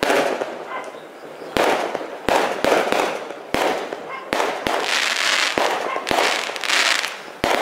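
Fireworks going off: about ten sharp bangs at uneven intervals, several followed by a second or so of crackling.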